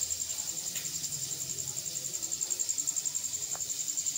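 A cricket chirping: a high-pitched pulsing trill, about ten pulses a second, without a break.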